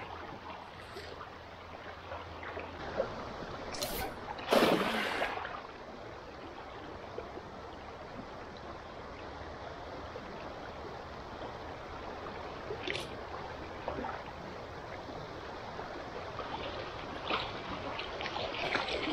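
Shallow river current running steadily over a gravel bed, with splashing from a cast net being thrown and hauled in. The loudest splash comes about four and a half seconds in and lasts about a second.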